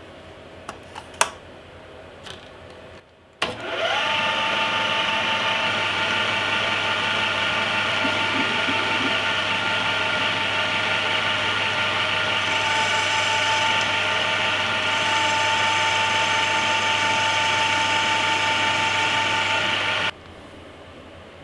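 Converted Belfex BF 520C CNC lathe: a few light clicks, then about three seconds in the spindle motor whines up to speed and runs steadily with a high whine, cutting off shortly before the end.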